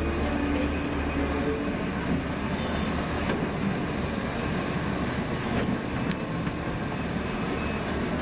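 A large crawler excavator working: a heavy diesel engine running with a steady low hum and drone, plus a few faint clicks and clanks.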